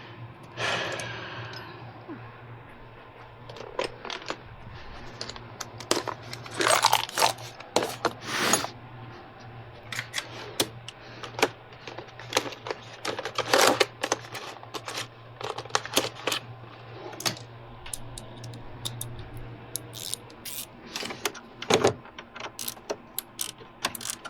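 Small metal hand tools and Torx bits clinking and scraping: irregular sharp clicks and clinks, with a steady low hum underneath.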